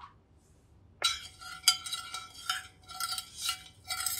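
Metal spoon stirring sugar and dry flour in a glass baking dish, scraping and clinking against the glass so that the dish rings. The strokes start about a second in and come in uneven pulses, roughly two a second.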